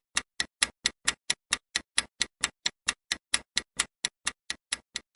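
Quiz countdown timer sound effect: a clock ticking evenly, about four and a half ticks a second.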